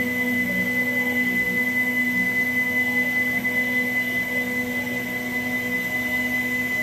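Home-built CNC machine running: its motors give a steady high-pitched whine over a lower hum, unchanging throughout.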